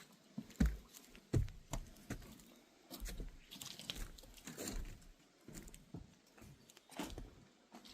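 Footsteps crunching along a walking path, irregular steps with some low thumps.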